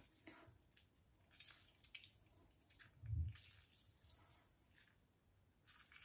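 Faint squelching of a half lemon squeezed by hand, with juice dripping into the liquid in a glass dish. A single low thud about three seconds in is the loudest sound.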